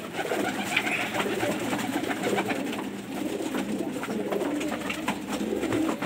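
Several domestic fancy pigeons cooing continuously, their calls overlapping.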